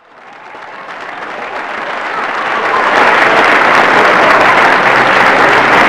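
Applause: many hands clapping, fading in from silence and swelling over about three seconds, then holding steady and loud.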